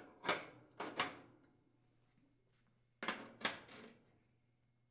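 Gas range burner caps being set down onto their burner bases: a few clinks, each with a short ring, in two groups about three seconds apart.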